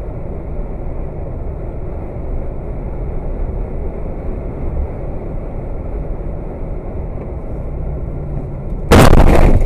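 Steady, muffled road and engine rumble of a vehicle driving at highway speed, picked up by its dash cam. About nine seconds in, a sudden very loud bang.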